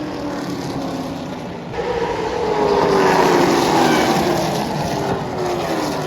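Limited late model stock cars racing past on a short oval track. Their engines grow loud about two seconds in, then drop in pitch as the pack goes by.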